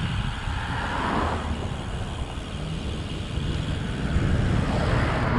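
Wind buffeting the microphone of a moving road bicycle, a steady low rumble, with road noise swelling about a second in and again near the end.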